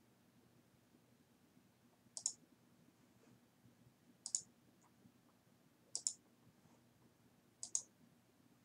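Computer mouse button clicked four times, about two seconds apart. Each click is a quick press-and-release double tick.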